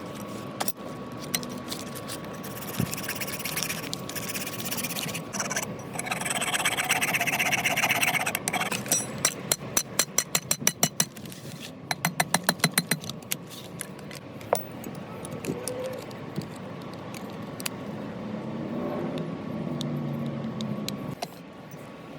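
Abrasive scraping on a metal motor part of a vintage Craftsman piston sprayer, as it is filed and sanded to size, followed by quick, light hammer taps in two fast runs about ten and twelve seconds in.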